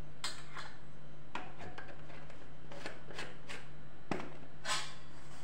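Stainless steel spice box being handled while spice is taken out: a scattered series of short scrapes and light clinks, with one sharper click about four seconds in.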